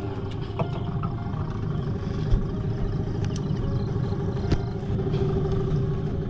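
An engine running steadily at idle with a low hum. A few sharp knocks and clatter come through it, about half a second, two and a half and four and a half seconds in.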